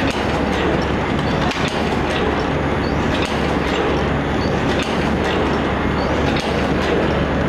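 Single-PE paper cup forming machine running: a steady mechanical din with regular clicks and clacks.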